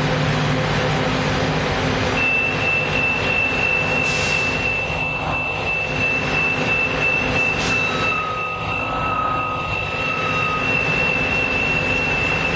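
Transit bus diesel engine idling at a stop, with a steady high-pitched electronic tone sounding from about two seconds in and a second, lower tone joining for a couple of seconds later on. Two short hisses, about four and eight seconds in.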